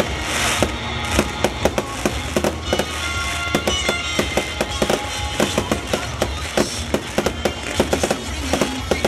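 Fireworks display: a rapid, irregular run of sharp cracks and bangs from bursting shells, several a second, with music playing underneath.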